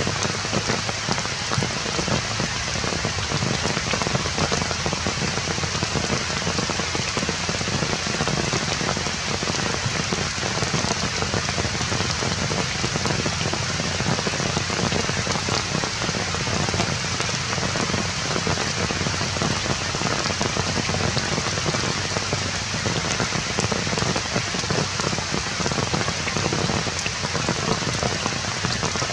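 Steady rain falling, with many individual drops striking nearby surfaces.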